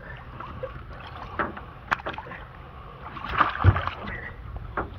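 Water splashing and sloshing beside a boat as a hooked blue catfish thrashes at the surface and a landing net is dipped in. A few sharp knocks, and a louder splash with a thump about three and a half seconds in.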